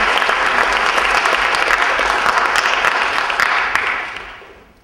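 Audience applauding: many hands clapping together in a dense patter that dies away over the last second.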